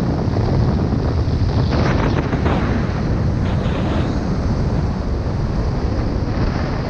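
Loud, steady wind buffeting a camera microphone at speed-riding flight speed, a deep continuous rumble with a few brief higher rushes between about two and four seconds in.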